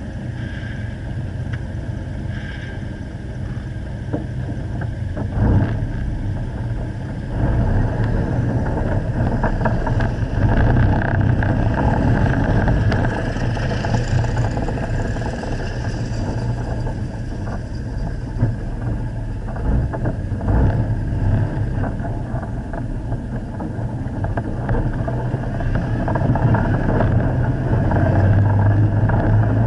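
Steyr-Puch Haflinger off-road vehicle's air-cooled flat-twin engine running as it drives over rough dirt tracks, with occasional knocks from the bumpy ground; it gets louder near the end.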